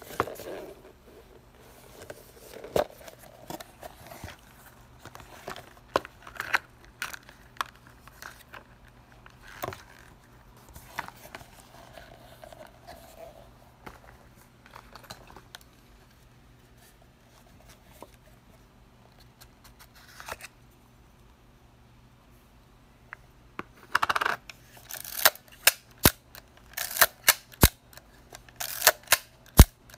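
Rustling and light knocks of a leather camera case being handled and opened. Near the end comes a run of sharp mechanical clicks from the Petri Pro 7 35 mm rangefinder camera as it is worked in the hands.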